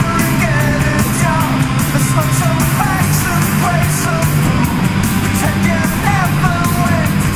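Rock music with a singing voice and a steady drum beat.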